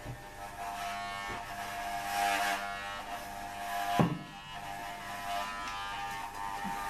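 Electric hair clippers buzzing steadily as they cut hair, with a short sharp knock about four seconds in.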